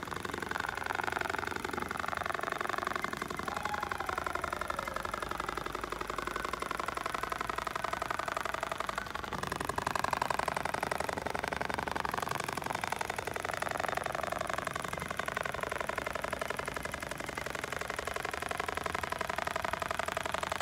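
Dematron DM-1280 computer-controlled industrial pattern sewing machine stitching through a quilted upholstery panel: a fast, steady run of needle strokes with a whine that rises and falls in pitch as the machine follows the pattern.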